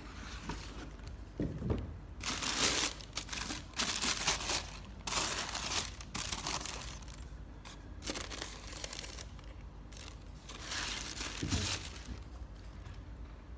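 Tissue paper wrapping inside a sneaker box rustling and crinkling as it is handled and pulled back, in several irregular bursts.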